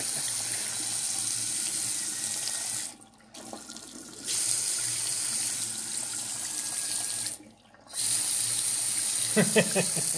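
Water from a mixer tap fitted with an LED aerator running into a bathroom sink. It stops briefly twice, about three seconds in and again after seven seconds, and comes back on each time. A short pitched sound near the end briefly rises a little above the water.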